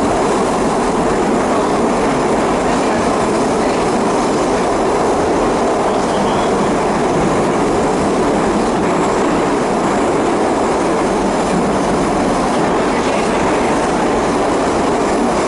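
St Petersburg metro train running between stations, heard from inside the carriage: a steady, loud rumble of wheels on rail in the tunnel.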